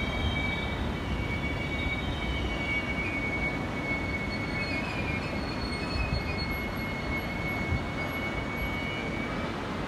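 VR InterCity double-deck coaches rolling out past the platform: steady rumble of wheels on the rails with a thin, high wheel squeal that stops shortly before the end.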